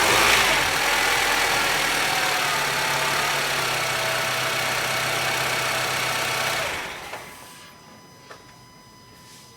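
Honda Civic FD's 1.8-litre R18 inline-four running, its pitch falling and then settling to a steady idle. The noise comes from worn-out tensioners and engine mounts, shown with the handbrake engaged. The engine is shut off about seven seconds in and the sound dies away.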